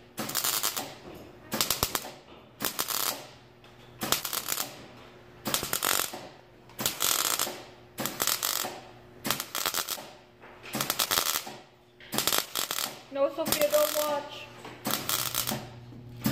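Wire-feed welder arc-welding rusted truck-cab sheet metal in short stitch bursts, each about half a second of crackling. There are about a dozen bursts, roughly one every second or so, with quiet gaps between them.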